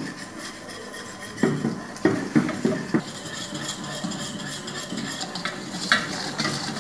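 Wire whisk stirring flour in a hot stainless steel pot, its metal tines scraping and knocking against the pot, with a few sharper knocks between one and three seconds in. A steady sizzle runs underneath as the flour toasts.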